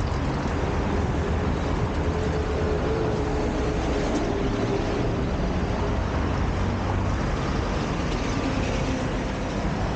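Steady road-traffic noise with a low rumble, heard while riding along a busy road. A faint engine tone from a passing vehicle is held for a few seconds in the first half.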